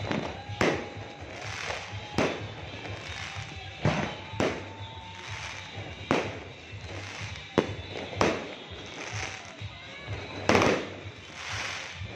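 Fireworks going off: a series of about ten sharp bangs at uneven intervals of a second or two, the loudest and longest near the end.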